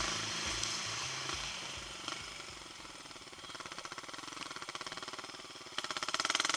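Motorcycle engine running, heard as an even rapid pulsing that grows louder toward the end, while background music fades out in the first couple of seconds.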